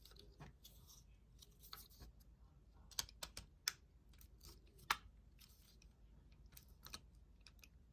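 Faint, irregular clicks and taps of a hex wrench and small metal lock parts as a Master Lock 911 padlock is screwed back together, with a few sharper clicks in the middle.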